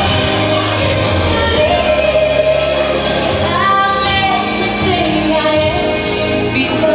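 A slow song with a singer's voice over steady backing music, the first-dance song played loudly through the hall. The voice holds long notes that slide between pitches.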